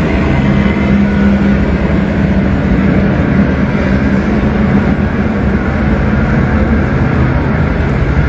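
A steady engine hum, low and unchanging, under a constant hiss.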